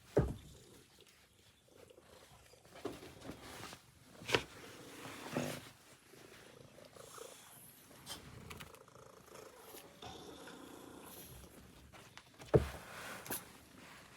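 Cat purring and making short low sounds, broken by two sharp thumps, one just after the start and a louder one about twelve and a half seconds in.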